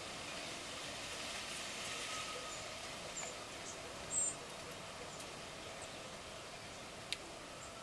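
A few short, high bird chirps, the loudest a quick double chirp about halfway through, over a steady background hiss; a single sharp click near the end.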